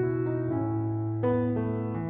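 Background music: a keyboard in an electric-piano sound playing slow, sustained chords, with a new chord struck about a second and a quarter in.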